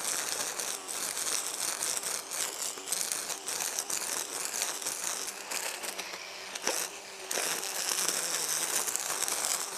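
EGO Power+ cordless brush cutter running at full speed, its spinning line slashing through dense, wet grass and weeds with a steady rasping whine. The battery is almost empty, yet the motor holds full power.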